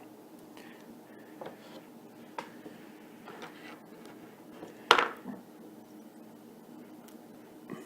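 Light clicks and taps of a smartphone and small repair tools being handled on a hard work surface during reassembly, with one sharper clack about five seconds in.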